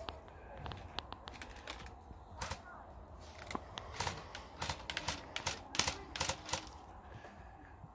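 Airsoft guns firing scattered shots: faint, irregular sharp snaps and clicks, some in quick pairs and short runs, most of them from about two seconds in.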